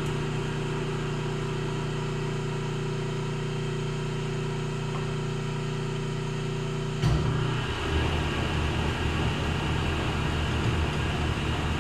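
Hardinge HC chucker lathe running with its spindle turning, a steady machine hum. About seven seconds in, a sharp clunk, and the hum turns lower and rougher for the rest of the time.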